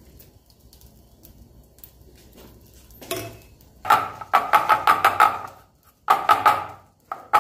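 Aluminium idli plates clattering and scraping as they are fitted onto the idli stand's central metal stem. The rattling sets in about three seconds in and comes in quick metallic runs with a ringing edge, with two brief breaks.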